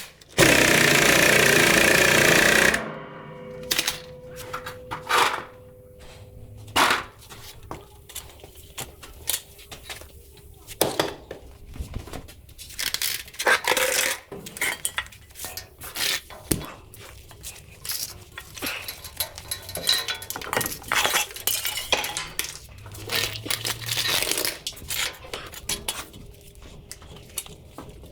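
A power tool runs loudly for about two and a half seconds, then metal tools and parts clink and clank again and again during suspension work.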